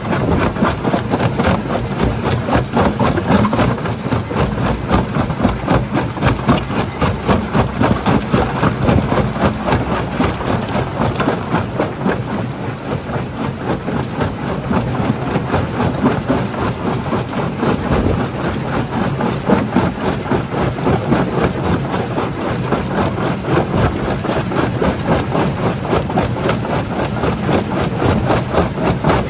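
Stone-crushing jaw crusher running: a steady heavy machinery rumble with a continuous rapid clatter.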